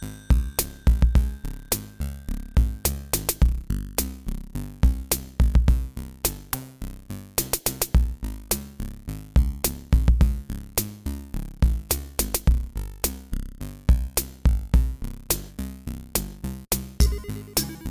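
Electronic background music with a drum-machine beat and synthesizer.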